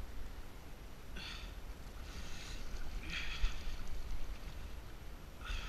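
Water slapping against the hull of a small fishing boat in short splashy bursts, about four times, over a steady low rumble of wind on the microphone.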